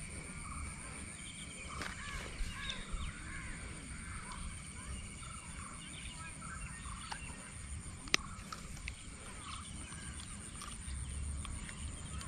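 Birds calling and chirping repeatedly over a low rumble, with one sharp click about eight seconds in.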